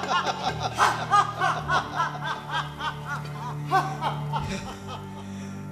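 Loud laughter in a long run of quick 'ha-ha' beats, about four or five a second, tailing off about four and a half seconds in, over a steady low drone of background music.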